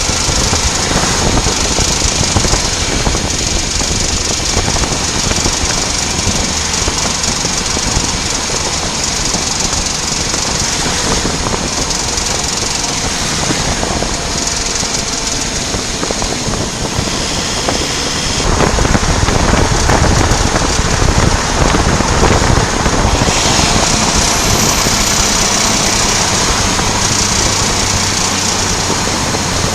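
VW Passat B8 rolling slowly in a low gear off the throttle, with a rapid ticking from the driveline over the engine and road noise, getting louder about two-thirds of the way through. The ticking comes from a worn outer constant-velocity joint on the drive shaft.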